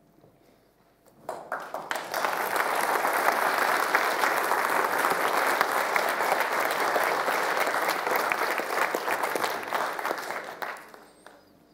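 Audience applauding: the clapping starts about a second in, holds steady for around nine seconds, then dies away near the end.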